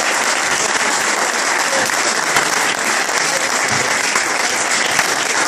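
A roomful of people applauding steadily, with a few voices mixed in.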